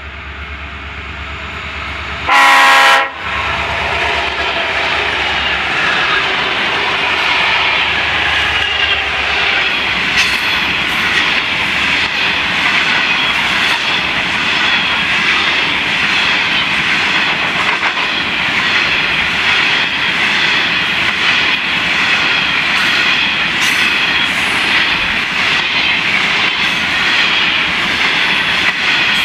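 A freight train hauled by EMD two-stroke diesel locomotives. About two seconds in, the lead locomotive gives a single short, loud blast on its horn. The diesels then run past with a low rumble, followed by a long string of wagons rolling by with steady clatter and rhythmic clicking of wheels on the rails.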